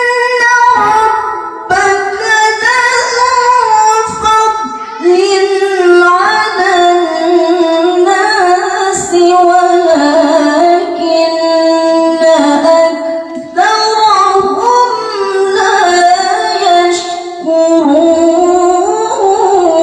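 A woman's Qur'an recitation (tilawah) sung into a handheld microphone in a melody resembling Javanese sinden singing: long held, wavering, ornamented notes in phrases broken by short pauses for breath.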